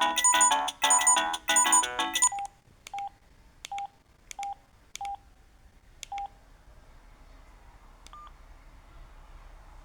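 Samsung SGH-E330N mobile phone speaker: a polyphonic ringtone melody cuts off about two seconds in. It is followed by six short keypad beeps of one pitch at uneven intervals.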